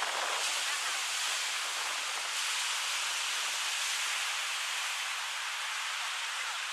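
Small waves breaking and washing up a sandy beach: a steady hiss of surf.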